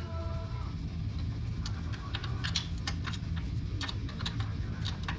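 Scattered, irregular sharp metallic clicks and clinks of hand tools and parts being worked on the ATV's rear axle hardware, over a steady low hum.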